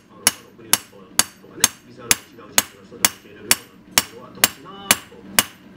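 Hand hammer striking a forged knife blade laid on a steel anvil block: twelve sharp blows in an even rhythm, about two a second.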